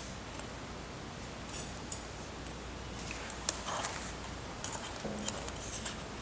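Scattered light clicks and clinks of steel surgical instruments, a needle driver and clamps, handled while a large suture needle is passed through a cloth-covered uterus model; the clicks come in small clusters, busiest in the second half.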